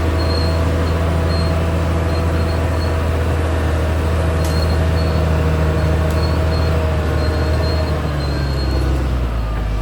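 Caterpillar D6R XL bulldozer's diesel engine running steadily under load, with a high squeal that comes and goes from its steel tracks. The engine note changes about eight seconds in.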